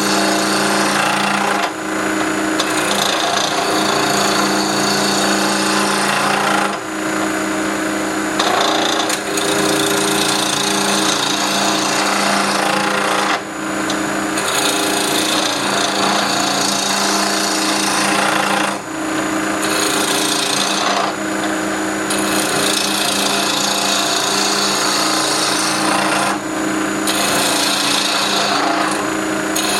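Wood lathe running while a turning tool cuts a stabilized wood pen blank: a loud, steady scraping hiss over the motor's constant hum. The cutting noise dips briefly about five times while the hum carries on.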